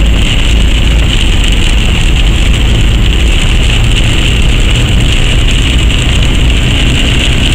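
Steady road and engine noise heard from inside a moving car: a constant low rumble with an even hiss over it.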